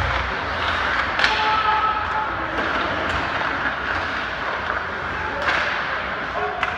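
Ice hockey game sound in a rink: a steady din of crowd and play, broken by four sharp knocks of puck and sticks against the boards, with a low thud at the very start.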